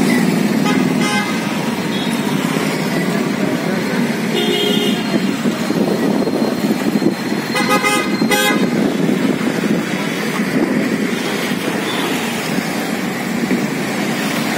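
Steady road traffic noise with motor vehicles passing, and short vehicle horn toots: one about four seconds in and two more close together about eight seconds in.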